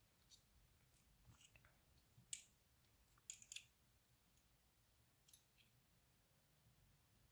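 Faint, scattered clicks and taps of a small plastic N scale model locomotive being handled in the fingers, with a sharper cluster of clicks near the middle.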